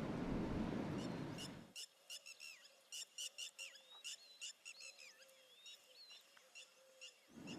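A steady rushing noise for about the first second and a half, then it cuts off and faint, rapid bird chirps and short gliding whistled calls follow. The rushing noise returns just before the end.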